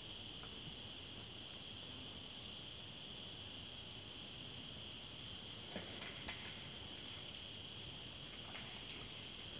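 Steady high insect chirring, with two faint sharp clicks about six seconds in.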